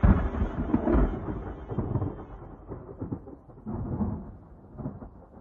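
Thunder rumbling: a sudden loud clap, then rolling rumbles that fade over several seconds as the higher sounds die away.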